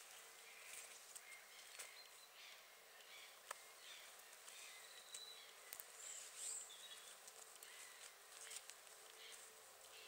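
Quiet outdoor ambience with faint, scattered high chirps of distant small birds and a few light clicks.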